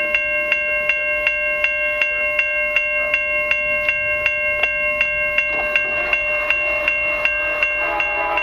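Railway level-crossing warning bell ringing in a steady rhythm, about two to three strikes a second, each strike ringing on in several clear tones: the crossing signals are activated for an approaching train.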